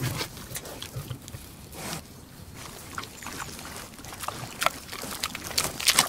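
A pig chewing and smacking its food: irregular short clicks, coming more often in the second half.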